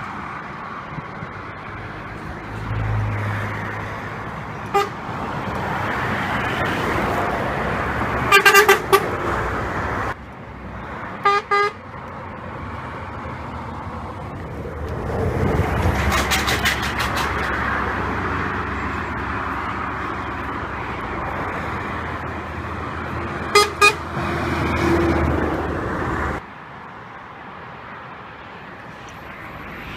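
Passing trucks sounding their horns: several short toots and one longer blast about halfway through, over the steady rumble and tyre noise of passing traffic.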